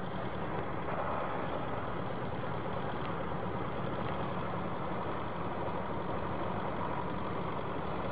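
Farm tractor's diesel engine running steadily.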